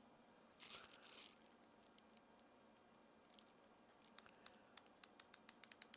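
Faint light clicks from an insulin pen's dose mechanism, coming quickly, several a second, from about four seconds in. A soft rustle about a second in comes before them.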